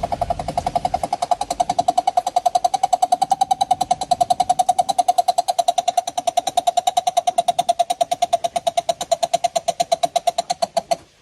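A coucal calling: one long, fast series of hollow hoots, about ten a second on a steady pitch, that stops abruptly near the end.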